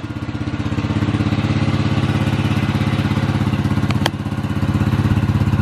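Italika FT125 motorcycle's 125 cc single-cylinder four-stroke engine idling steadily with an even, fast beat, growing louder near the end, with one sharp click about four seconds in.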